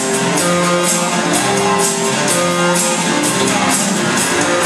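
Loud, guitar-led dance music played over a DJ's PA system, with a steady beat.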